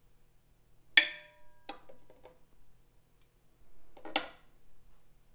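Metal spoon clinking against a ceramic bowl: a sharp clink about a second in that rings briefly, another soon after, and a short cluster of light clinks about four seconds in.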